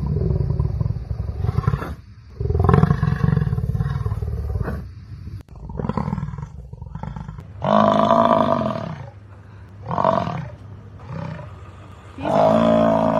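A large animal's deep, rough roaring calls, about six in a row, each a second or two long, the later ones more clearly pitched.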